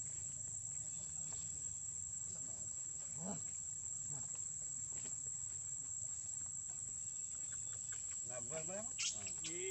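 Insects droning steadily at a high pitch, with a few short voice-like sounds near the end.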